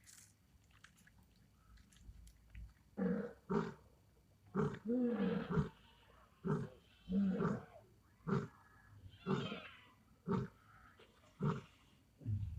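Lion roaring in a series of about ten short calls, roughly one a second, starting about three seconds in.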